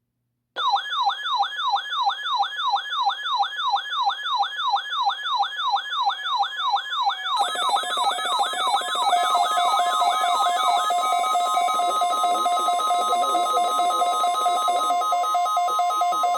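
Electronic siren-style alert tone: a fast rising-and-falling yelp, about three sweeps a second, starting half a second in. About seven seconds in a steady warbling two-note tone joins it, and the sweeps fade out near eleven seconds, leaving the warbling tones.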